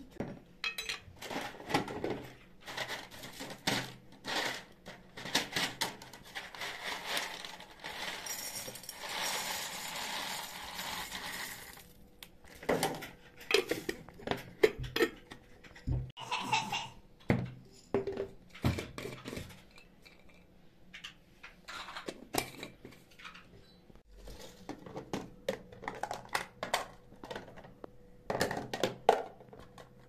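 Glass jars and their lids clinking and knocking on a countertop as they are picked up, set down and handled. There are many short knocks, and about a third of the way in a few seconds of steady rustling hiss.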